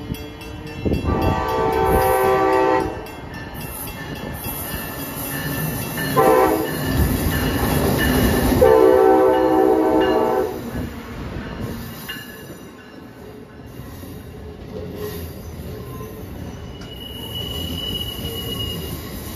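Amtrak ACS-64 electric locomotive's air horn sounding three blasts: a long one about a second in, a short one around six seconds in, and another long one around nine seconds in. The locomotive and passenger cars then roll past with a steady rumble of wheels on rail, and a brief high wheel squeal comes near the end.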